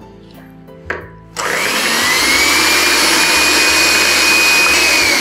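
Electric hand mixer switched on about a second and a half in, its motor running with a steady whine that rises briefly as it spins up. The beaters are whipping salted egg whites towards stiff peaks.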